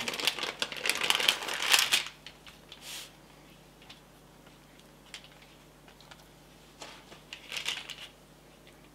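Baking paper crinkling and rustling as hands roll a bacon-lattice-wrapped pork loin in it. The crinkling is densest for the first two seconds, then only a few faint rustles follow near the end.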